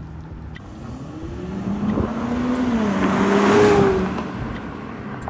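Kia Stinger GT's twin-turbo V6 through an MBRP cat-back exhaust, accelerating as it drives past. The engine note climbs in pitch and loudness as the car approaches, peaks about three and a half seconds in, then fades as it pulls away.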